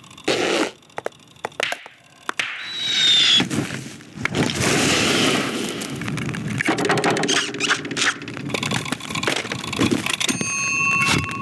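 A quick string of dubbed cartoon-style sound effects. Sharp clicks and knocks come first, then a gliding high squeal about two and a half seconds in. A long noisy rushing stretch follows, and near the end a steady pitched tone sounds for about a second.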